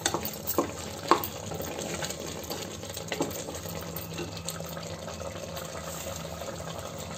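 Mutton gravy bubbling and simmering in an open pressure cooker pot as its water cooks off to thicken it. A spatula scrapes and knocks against the pot a few times in the first few seconds.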